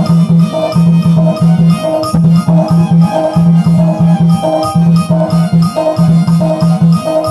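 Instrumental interlude of a Chhattisgarhi folk song played by a live band: a fast, steady drum rhythm under a melody line, with no singing.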